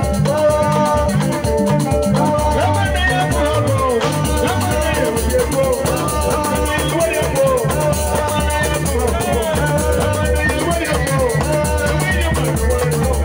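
Live band music: bending guitar lines over a steady, repeating bass and drum groove with a shaker rattle.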